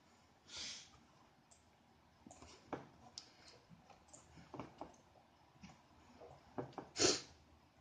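Faint, scattered clicks and small knocks in a quiet room, with a louder short burst of noise about seven seconds in.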